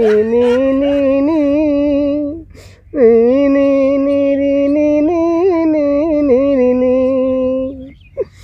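A man singing a wordless lament in two long, wavering held notes. A short break comes about two seconds in, and the second note ends shortly before the close.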